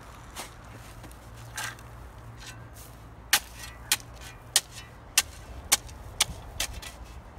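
A series of sharp knocks, about one every half second, starting about three seconds in, over a steady low hum.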